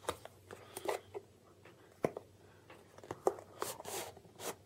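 Cardboard retail box being worked open by hand, its outer sleeve sliding off the inner box: a scatter of short scrapes, rustles and light clicks and knocks, several of them sharp.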